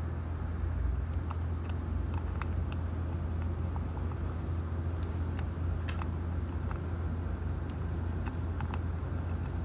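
A steady low hum with faint, irregular small clicks scattered through it, from a Phillips screwdriver working the screw that holds a wheel on a Huina 583 RC wheel loader.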